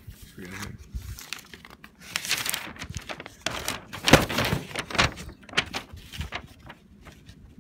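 Paper rustling and crinkling in irregular bursts as printed sheets are handled and turned over, with short crisp crackles.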